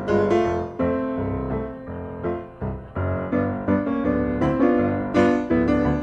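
Piano music, notes struck and fading one after another at a moderate pace.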